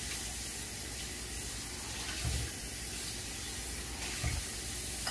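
Kitchen faucet running a steady stream of water into the sink, most likely over the egg bowl and whisk just set there.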